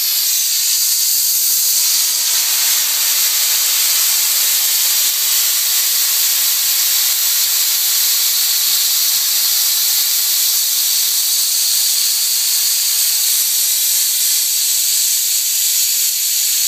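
Compressed air hissing steadily out of the open vent valve on a water-geyser tank. It is a loud, high hiss: the remaining air pressure is being bled off so the tank can be refilled with water.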